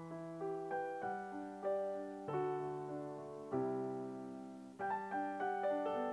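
Background piano music, with chords struck about once a second and a melody line above them.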